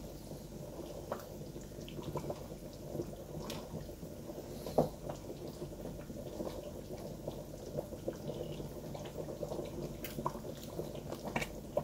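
Wooden spoon stirring a steaming pot of rice and beef in broth: a low, wet sloshing with scattered light clicks of the spoon against the pot, one sharper knock about five seconds in.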